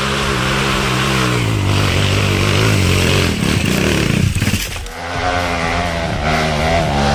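Dirt bike engine revving hard under load as the bike claws up a steep, loose dirt slope, its pitch rising and falling. It eases off briefly about four and a half seconds in, then revs up again.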